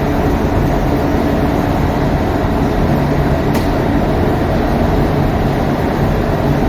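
Steady, loud machine drone with a low hum, and a faint click about three and a half seconds in.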